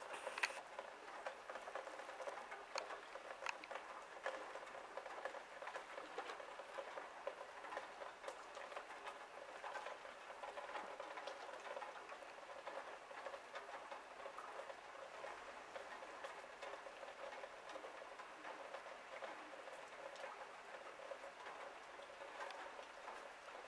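Steady, faint, fine patter of many tiny ticks, like falling wet snow landing on branches and surfaces, with one slightly louder click near the start.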